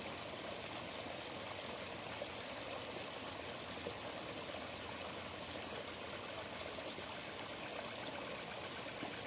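Small shallow stream running steadily, water trickling over rocks into a pool.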